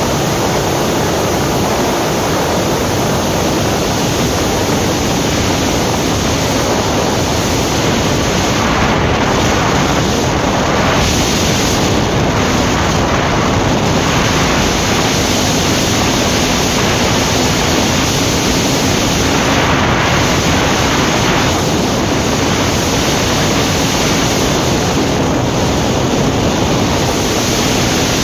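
Steady rush of wind on the microphone from a Yamaha R15 V3 sport bike riding at highway speed in sixth gear. The faint, steady drone of its single-cylinder engine runs beneath the wind.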